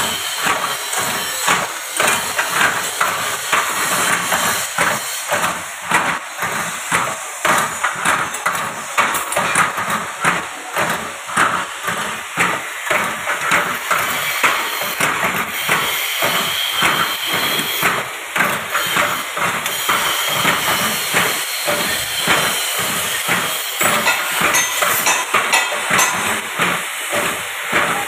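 Automatic ring-making machine, driven by an electric motor, running continuously with a fast, even clatter of metal knocks, about two to three a second, over a steady hiss.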